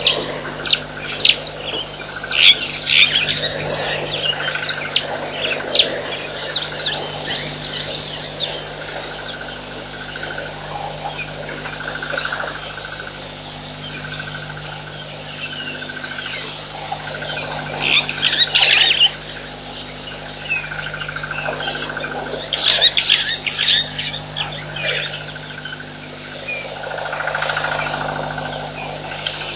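Small birds chirping and chattering in scattered bursts, loudest in two clusters past the middle, over a steady low hum and a faint tone that repeats about once a second.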